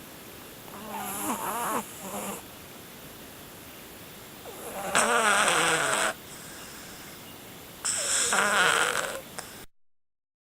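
Siamese cat snoring loudly in its sleep: three long snores about three seconds apart.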